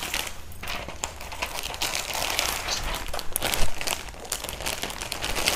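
Clear plastic clothes packaging crinkling and rustling as it is handled and pulled through a pile of garments, with one louder crackle about three and a half seconds in.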